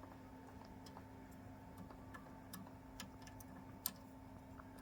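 Faint, irregular small clicks and ticks of a screw being tightened with a hand tool during assembly, with one sharper click nearly four seconds in, over a steady faint hum.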